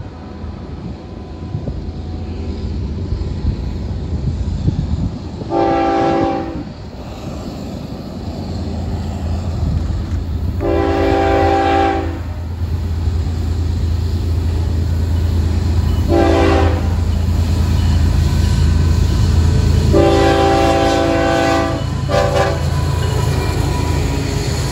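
A Florida East Coast diesel freight locomotive blows its air horn in the grade-crossing pattern: long, long, short, long, the last with a brief extra toot. Under the horn, the low rumble of the engines and wheels grows steadily louder as the train nears and reaches the crossing.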